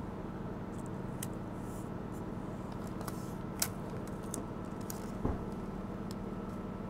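Light clicks and taps of clear adhesive tape being handled and pressed down onto a steel plate by hand, with a soft knock about five seconds in, over a steady low hum.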